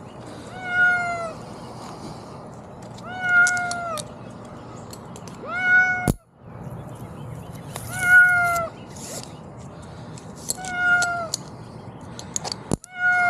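A cat stuck high in a tree meowing: long, drawn-out calls that rise and fall in pitch, repeated about every two and a half seconds.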